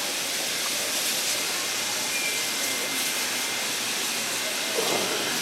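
Steady hiss of steam from NSW C36 class steam locomotive 3642, standing at the platform.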